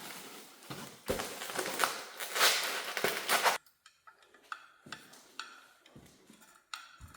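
Handling noise while the light fixture's outer glass is fitted. A loud rustling scrape lasts about three and a half seconds and cuts off abruptly, then come scattered light clicks and clinks of glass and metal parts.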